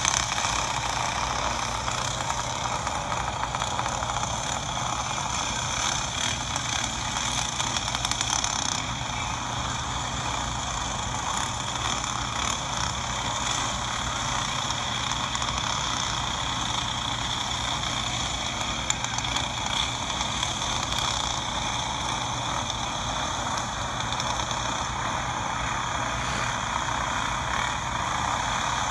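Racing karts' small engines running together in a pack around a dirt oval, a steady continuous buzz of several engines with no single kart standing out.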